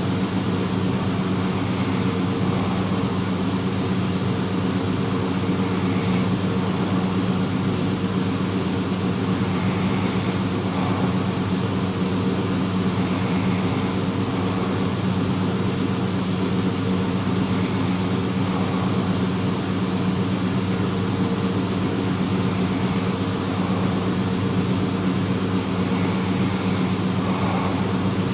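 Steady mechanical drone at one unchanging pitch, with faint soft sounds recurring about every four seconds beneath it.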